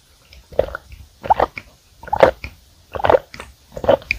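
Milk being gulped down from a glass, five swallows at about one a second.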